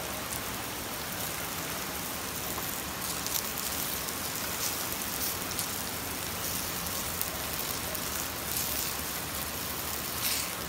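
Thin eggplant slices frying in hot oil in a pan: a steady sizzle with a few sharper crackles.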